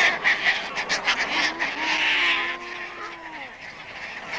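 Caspian terns giving harsh, rasping calls, several in a row, in a nesting colony, with lower, gliding calls of other seabirds behind.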